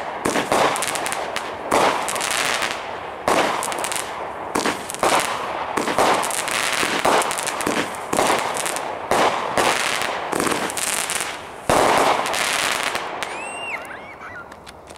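A 200 g, 25-shot consumer firework cake firing: shots about one a second, each bursting into crackling stars. The shots thin out and fade over the last few seconds as the cake finishes.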